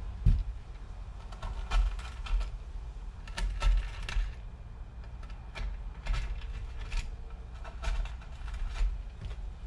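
Small screwdriver punching through skateboard griptape at the truck bolt holes: a series of irregular short clicks and scratches as the grit paper is pierced.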